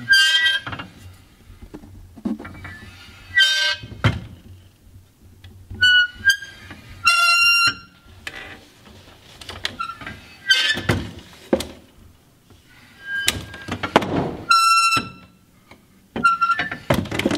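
The tipping seat of a welded metal stage trick chair is rocked back and forth by hand. Its pivoting brace and wheels give short, high squeals and thunk against the stops, again and again.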